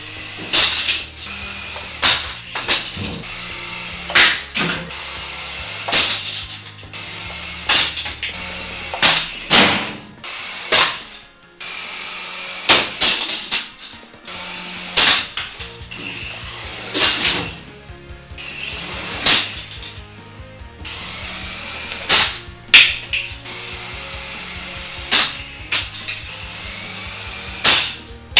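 Syma S107G mini RC helicopter crashing again and again, about fourteen times: sharp clattering impacts of the little toy striking the tile floor and furniture, every second or two.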